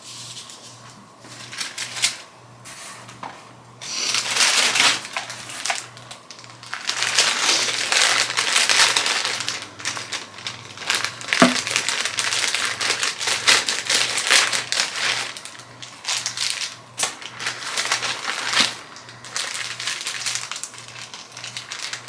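Packaging rustling and crinkling as it is handled and opened, coming and going with a few quieter pauses.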